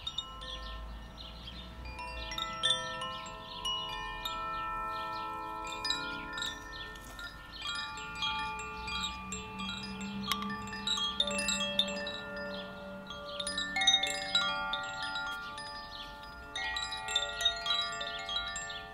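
Koshi chimes ringing continuously, their small strikers tinkling against the tuned rods so that many clear bell-like tones overlap and sustain. A low tone swells and fades in the middle.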